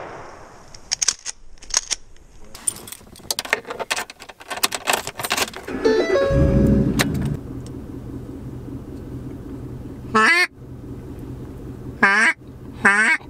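Duck call blown in short quacking bursts, once about ten seconds in and twice more near the end, over a pickup truck engine idling with a steady low hum. About six seconds in, the engine is started, a short loud burst that settles into the idle. Before that, a run of sharp clicks.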